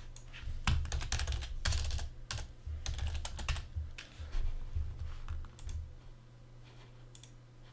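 Typing on a computer keyboard: a run of quick keystrokes lasting about five seconds, then a few faint clicks near the end, over a steady low hum.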